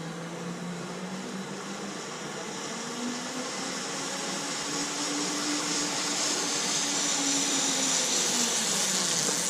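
Zipline trolley pulley rolling along a steel cable: a steady whirring whine that grows louder and steps up in pitch a few seconds in, then dips slightly near the end as the ride speeds up and slows.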